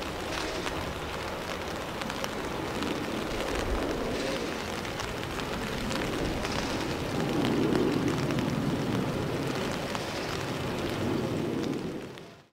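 Distant jet noise from a Boeing 737-500's CFM56-3 turbofans at takeoff power as the airliner climbs away: a steady low rumble that swells a little after the middle, heard through falling rain. It fades out abruptly at the very end.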